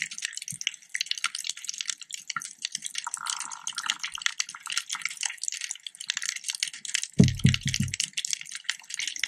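Underwater reef ambience: a dense, steady crackle of tiny clicks, with a short low burst of sound about seven seconds in.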